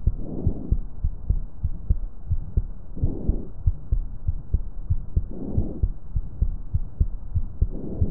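Stethoscope recording of normal vesicular breath sounds over a healthy lung: a soft rush on each inspiration, four breaths about two and a half seconds apart, with nothing heard on expiration. Heartbeat thuds run underneath, several a second.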